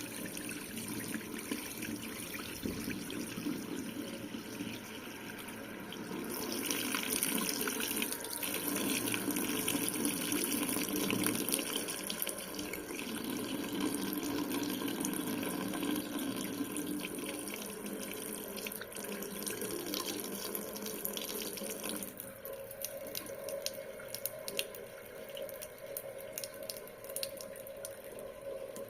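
Water running from a faucet into a sink as the tap is turned down slowly. The flow sound brightens a few seconds in, then thins abruptly about 22 seconds in, leaving a faint steady hum and scattered ticks.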